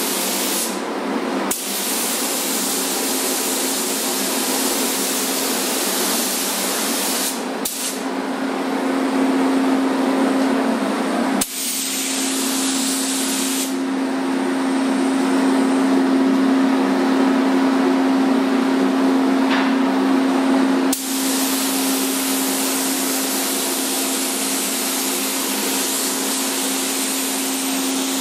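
Gravity-feed paint spray gun hissing with compressed air as it sprays paint, over a steady low hum. The hiss breaks off briefly a few times between passes.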